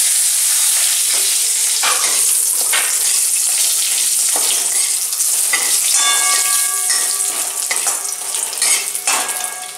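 Whole spices (dried red chillies, bay leaves, cloves, cinnamon and green cardamom) sizzling in hot mustard oil in a kadai, with a metal slotted spatula scraping the pan as they are stirred. The sizzle is strongest at first and eases in the last few seconds as the tempering fries through.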